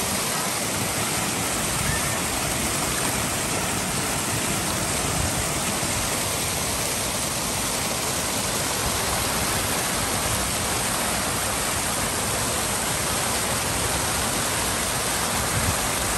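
Fast-flowing water rushing and splashing over rocks, a small cascade pouring down: a steady, even rush that does not change.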